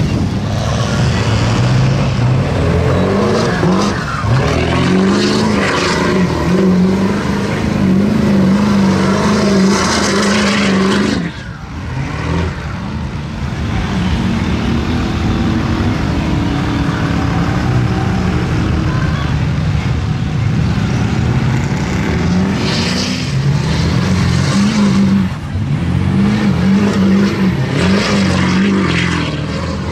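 Vehicle engines running and revving on a dirt lot, the pitch rising and falling repeatedly. The sound drops off briefly about a third of the way in and again near the end. In the last seconds a pickup truck's engine revs as it spins donuts, its tyres throwing dirt.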